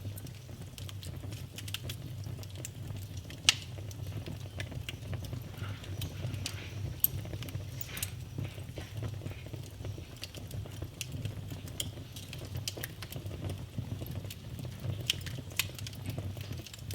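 Wood fire crackling in a fireplace: irregular sharp pops and snaps over a low steady rumble, the loudest pops about three and a half and seven seconds in.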